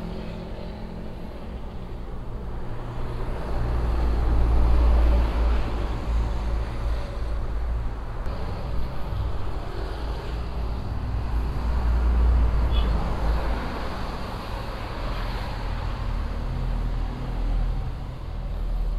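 Riding noise from a motorcycle at speed on a highway: steady wind rumble on the microphone mixed with tyre and traffic noise. It swells louder about four to six seconds in and again around twelve seconds.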